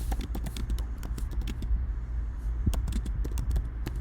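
Computer keyboard typing: a run of irregular key clicks over a low steady hum.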